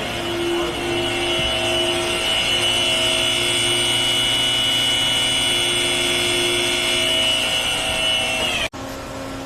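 Spindle of a Hartford X-3240 double column machining centre running at high speed, with a steady high-pitched whine over a machine hum. Near the end the whine cuts off suddenly, leaving a quieter steady hum.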